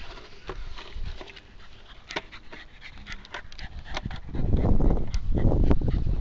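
A dog panting hard right at the microphone, loudest and heaviest over the last two seconds, after a stretch of scattered clicks and rustles. It is out of breath from running fetch.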